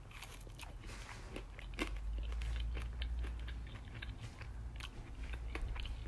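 A man biting into and chewing a chicken tender, with many small, quick crunches and crackles.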